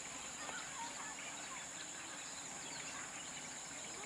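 Steady high-pitched insect drone with many short bird chirps scattered through it.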